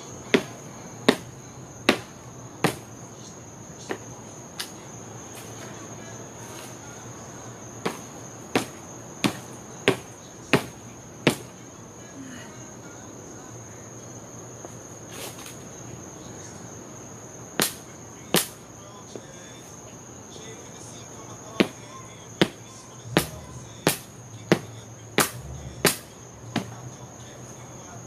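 Crickets chirping in a steady, high continuous trill, over which come runs of sharp knocks about three-quarters of a second apart, in groups of four to seven with pauses between them.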